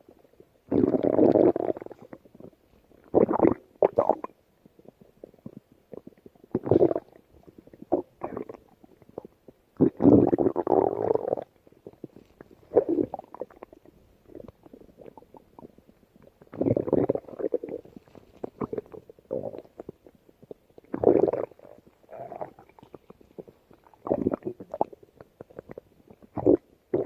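Stomach growling: an irregular string of gurgling rumbles, some short and some over a second long, with quiet gaps between them. The longest rumble comes about ten seconds in.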